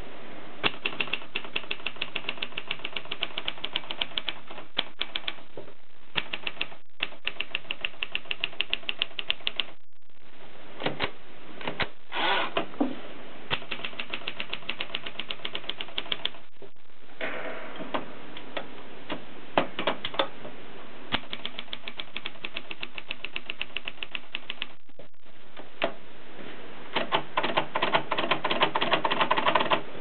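Continental manual portable typewriter being typed on: quick runs of typebars clacking against the platen, several strikes a second, broken by a few short pauses. The typing grows denser and louder in the last few seconds.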